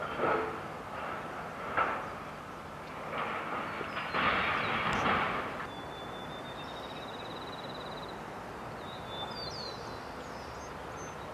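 Outdoor background noise: a few brief rushes of noise in the first half, the longest about four to five and a half seconds in, then a steadier, quieter background with faint high chirps.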